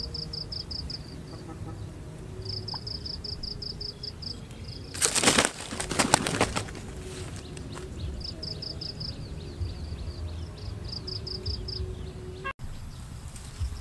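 A large bird's wings flapping hard for about two seconds, starting about five seconds in, as a spring-pole snare catches it. A high, pulsing insect trill repeats around it.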